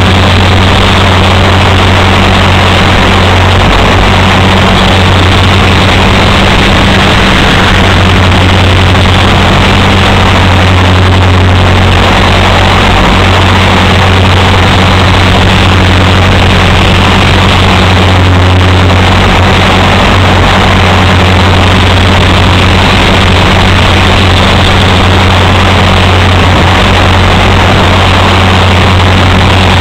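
Align T-Rex 450 electric RC helicopter running steadily, its motor and spinning rotor making a loud, even low drone. It is heard right up close from a camera carried on the helicopter.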